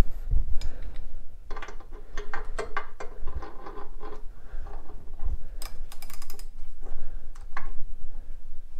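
Hand ratchet wrench clicking in short runs, mixed with metal tool clinks, as a stud puller is worked on a rusted cylinder stud in an aluminium motorcycle crankcase.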